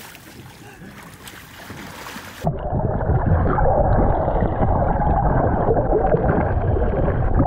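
Water splashing at the surface. About two and a half seconds in, the microphone goes under and the sound turns into a loud, muffled underwater rumble of churning water and bubbling.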